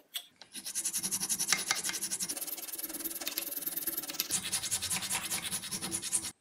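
A hand-held hacksaw blade sawing through a maple handle blank clamped in a vise: a fast run of scratchy cutting strokes that stops abruptly just before the end.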